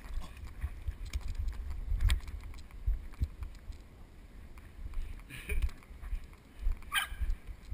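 Muffled low rumble and irregular thuds from running footfalls and wind buffeting a head-mounted GoPro Hero 2 in its waterproof housing, with a faint distant shout near the end.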